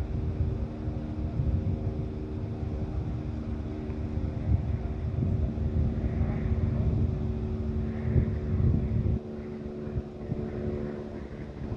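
Wind buffeting an outdoor microphone in a low, gusty rumble, over a steady mechanical hum of several fixed tones. The rumble cuts off suddenly about nine seconds in, leaving the hum.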